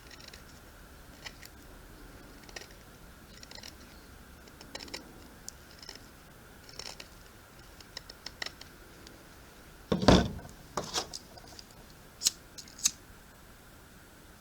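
Light scrapes and clicks of a steel camping knife being handled, with a heavier knock about ten seconds in and two sharp clicks near the end.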